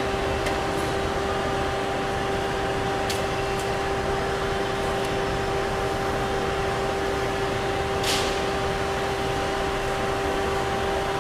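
Tamglass ProConvection glass tempering furnace running: a steady fan hum with a constant whine. A short hiss about eight seconds in.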